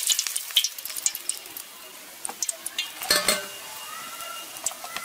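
Fried fish chop lifted out of hot oil in a kadai with a wire skimmer: scattered crackles and drips of sizzling oil. A few metal clinks follow about three seconds in as the chop is set on a steel plate.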